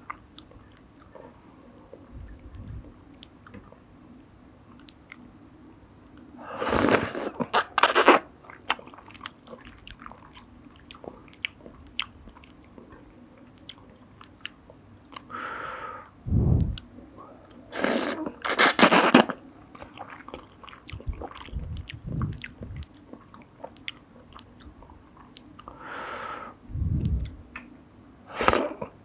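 Close-up eating of soup noodles: steady chewing, broken three times by louder, noisy sounds about a second long, like slurps, near the start of the second quarter, the middle and the end.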